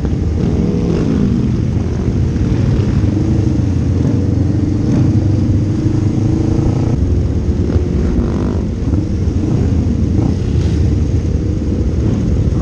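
Sport motorcycle engine running while riding, its pitch rising and falling with the throttle, with other motorcycles in the group around it.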